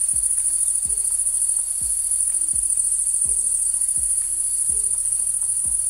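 Steady high-pitched insect chirring from an evening meadow, with soft background music underneath carrying a low, even beat of about three thuds every two seconds.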